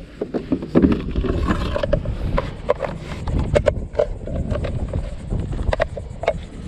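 Wind buffeting the action camera's microphone, with a scattering of short, sharp knocks and clicks over the middle and latter part.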